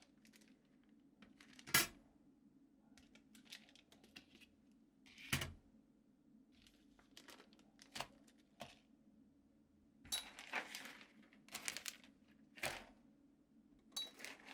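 Handling of keyboard parts and their packaging: short rustles and crinkles with scattered sharp clicks and taps, the loudest about two and five seconds in and a busier cluster in the last few seconds.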